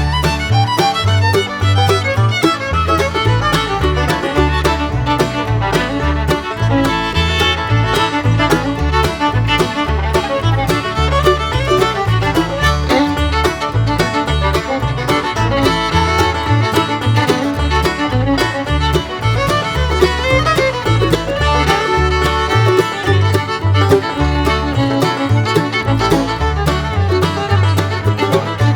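Background music: an upbeat fiddle-and-banjo tune in a bluegrass style, with a steady bass beat.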